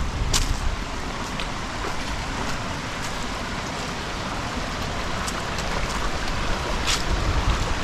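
Mountain river rushing steadily close by, with a few sharp clicks, one just after the start and one near the end.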